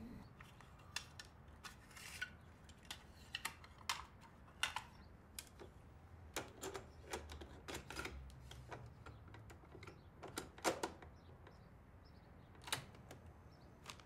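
A string of irregular mechanical clicks and clacks from a small desktop machine being worked by hand, with the loudest clack about two-thirds of the way through.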